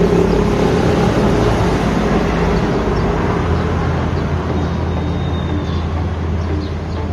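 City street traffic: road vehicles running close by, a steady noisy rush over a low engine hum that slowly eases off. A faint thin high tone sounds briefly a little past the middle.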